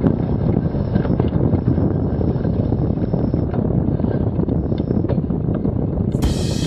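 Wind buffeting the camera microphone on the deck of a sailing yacht under way, a steady low rumble. About six seconds in, a brighter, fuller sound with sharp strokes cuts in.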